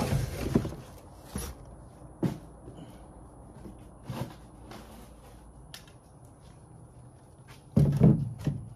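Cardboard box and its packing being handled and pulled apart: scattered light knocks and scrapes, with a louder clatter near the end.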